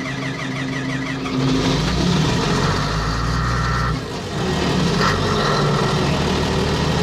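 Komatsu D155A bulldozer's diesel engine starting and running. It picks up about a second and a half in, drops briefly about four seconds in, then runs on steadily. It is starting again after a fault with its fuel pump.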